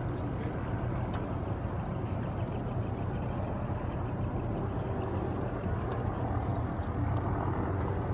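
Small boat's outboard motor running steadily at low speed, with a low hum under water and wind noise.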